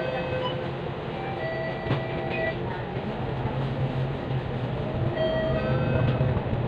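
Cabin noise of a moving bus: a steady engine and drivetrain hum with short high squeaks from the body. A whine rises in pitch a little past halfway as the bus picks up speed.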